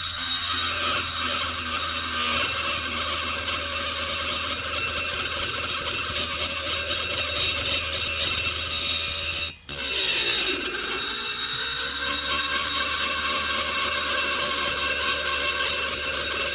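High-speed rotary tool running a cutting bit, grinding out the lower transfer ports of a chainsaw cylinder with a steady high whir. It stops for an instant a little over halfway through and then spins back up.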